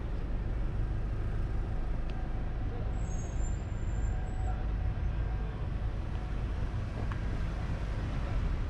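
Steady low rumble of a car driving slowly along a city street: road and engine noise.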